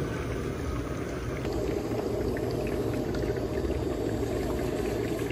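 Steady bubbling of oxygen through the distilled-water bottle of an oxygen bar's humidifier, which moistens the oxygen flowing to a nasal cannula.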